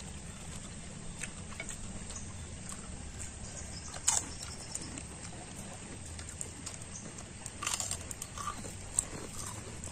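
Quiet chewing and the small clicks and rustles of people eating grilled fish with their fingers, over a steady low background noise. A sharp click about four seconds in and a short run of clicks near eight seconds are the loudest.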